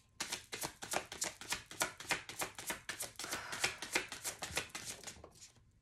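A deck of oracle cards being shuffled by hand: a quick run of card slaps, about six a second, stopping about five seconds in.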